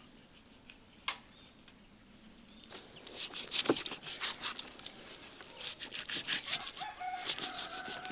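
Knife cutting and scraping raw beef off a whole bull leg bone: a quick run of scrapes and rips that starts about three seconds in, after a single click. A chicken clucks in the background.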